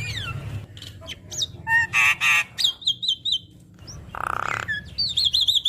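Javan myna singing a varied song full of mimicked phrases: quick whistled slurs, two harsh rasping notes, and a rapid trilled warble near the end, over a faint steady hum.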